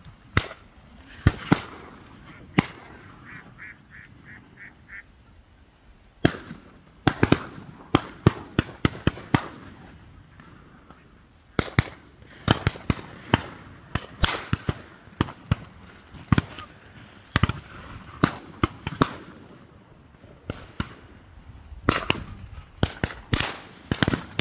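Many shotguns firing irregularly, often several shots in quick succession, at a flock of ducks flying over a pond. Between the shots ducks are calling, with a short run of about six quick calls a few seconds in.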